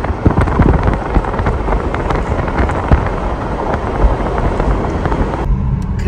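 Loud rushing road and wind noise from a moving car, dotted with many short crackles and knocks. About five and a half seconds in it cuts abruptly to a quieter, steadier hum.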